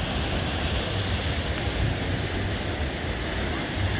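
Ocean surf washing over rocks, a steady rushing noise, with low wind rumble on the microphone.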